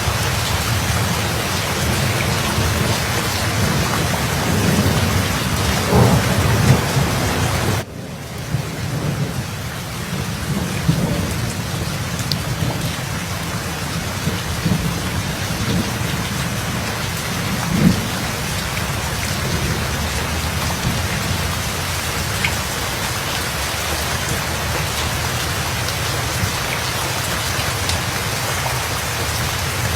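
Steady rain with low rolling thunder, swelling louder about six seconds in and again near eighteen seconds. The whole sound drops suddenly about eight seconds in, then carries on a little quieter.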